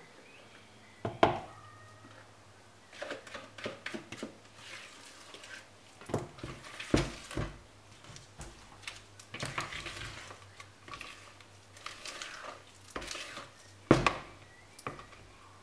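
Silicone spatula scraping cake batter out of a plastic mixing bowl and tapping against the bowls' rims, a run of irregular scrapes and clicks with a few sharper knocks: about a second in, around seven seconds in, and near the end.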